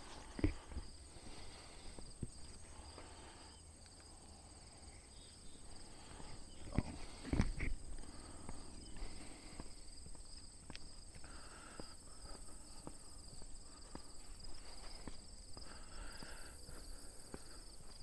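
Footsteps walking on a paved path against a steady high chirring of crickets and other insects, with a few louder knocks about half a second in and around seven seconds in.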